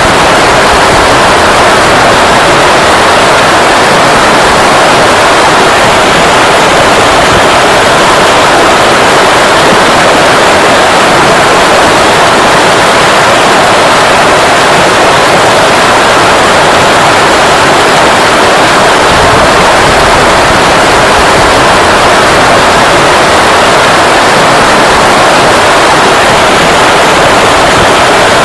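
River water flowing over stones: a loud, steady, even rush that does not change.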